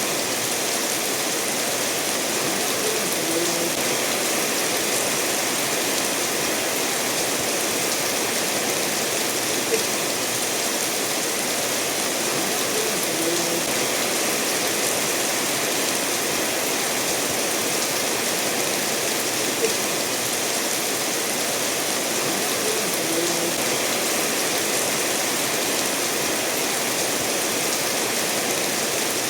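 Steady rain falling together with a stream running over stones, an even hiss of water. A small sharp tick stands out twice, about ten seconds apart.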